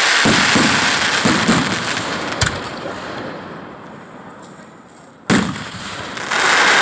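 Aerial fireworks: crackling shell bursts that fade over the first few seconds, a sharp bang about two and a half seconds in, a louder bang a little past five seconds, then a loud crackling burst near the end.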